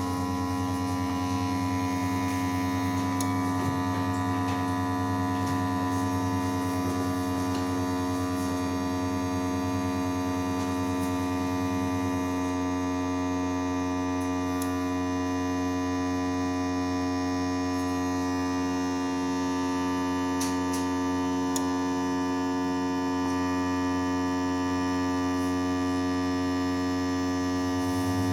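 Steady electrical hum with a strong low tone from an LCD screen-separator machine heating a smartwatch screen to loosen its adhesive.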